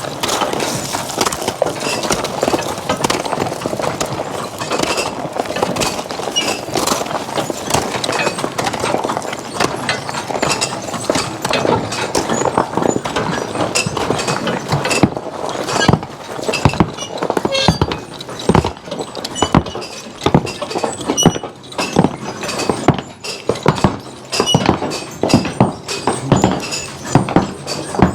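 Draft horses working with a wagon: hoof clops mixed with harness and chain clinks and rattling wooden knocks, with more frequent sharp knocks in the second half.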